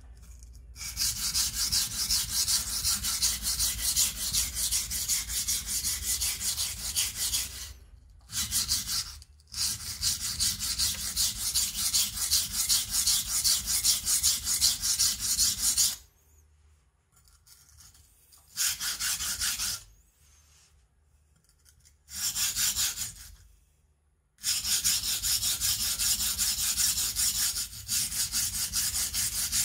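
Small deba kitchen knife being sharpened on a whetstone: fast back-and-forth scraping strokes of steel on stone in long runs. Near the middle the strokes stop briefly several times before starting again.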